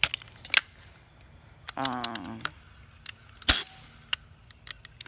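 Scattered sharp clicks and knocks of a Crosman 1377 multi-pump air pistol being handled, with one louder knock about three and a half seconds in.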